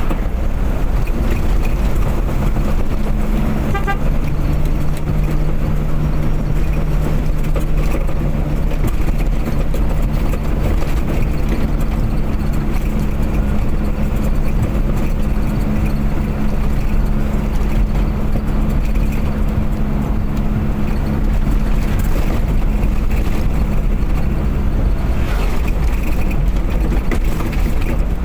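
A car driving at a steady speed: a constant engine drone with road and tyre noise.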